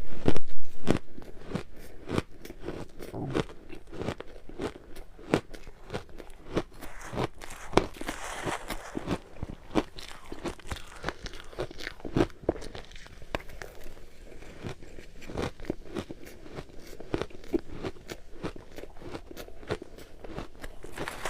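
Ice being bitten and chewed in a continuous run of sharp, irregular crunches and cracks, with the loudest, hardest bite in the first second.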